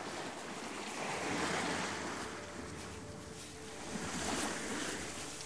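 Surf on a sandy beach: waves breaking and washing in, swelling twice and easing between.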